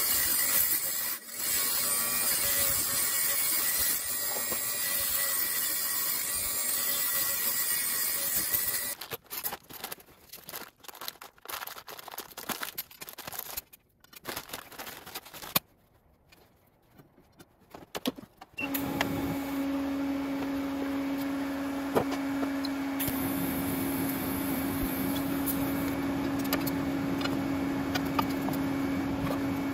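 A bench grinder's abrasive disc grinding the cut end of a steel pipe, a steady harsh grind held for several seconds while the pipe end is cleaned up. Then scattered clinks and knocks of steel pipe and small nuts set down on a steel table. About two-thirds through, a steady low hum starts and holds.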